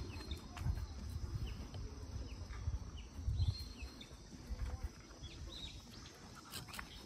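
Small birds giving short, high chirps now and then, over a faint steady high insect drone and a low rumble.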